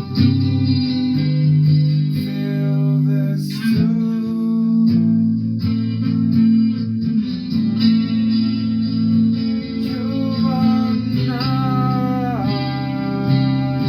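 Guitar playing sustained chords and picked notes, with one note bending downward near the end.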